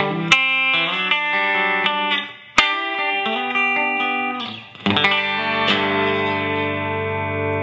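Electric guitar (a Telecaster on its bridge pickup) played clean through a DOD 280A compressor pedal into a Fender Blues Deluxe amp. A short run of picked single notes, then a chord struck about five seconds in that holds on evenly with a slight waver, the sustain of the compression.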